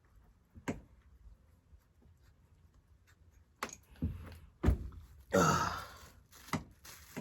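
Scattered knocks and clunks of metal engine parts and bolts being handled, about half a dozen, with a loud breathy sound lasting under a second about five seconds in.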